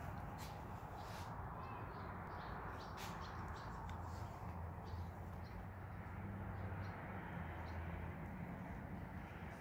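Quiet indoor ambience: a steady low hum under an even hiss, with scattered faint, short high chirps throughout.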